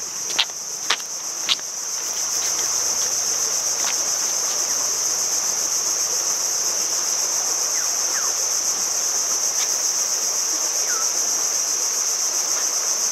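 Steady, high-pitched chorus of insects, with three sharp clicks in the first second and a half.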